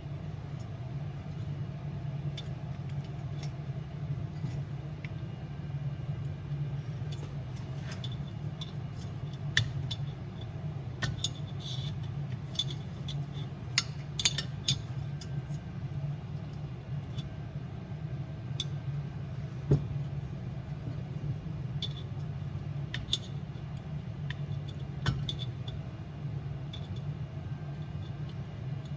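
Light metallic clicks and clinks, scattered and irregular, as small tools and diesel heater parts are handled and worked into place, over a steady low hum.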